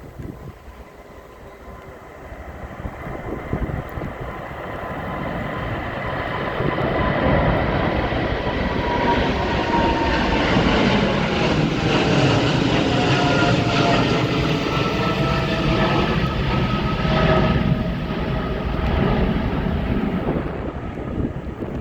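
Jet roar of a Boeing 777-300ER's twin GE90-115B turbofans at takeoff thrust. It builds over the first several seconds and then runs loud and steady, with a few whining tones that slowly fall in pitch.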